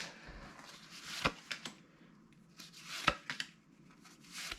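Baseball cards being handled and flipped through: faint rustling with a few sharp taps and snaps, the clearest about a second in and about three seconds in.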